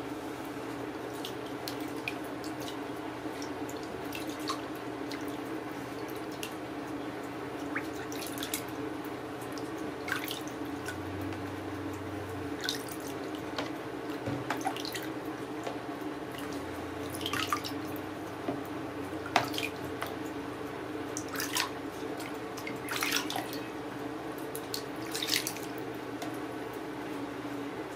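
Water splashing and dripping in irregular short bursts as a wet kitten is washed by hand in a tub, a few louder splashes in the second half, over a steady low hum.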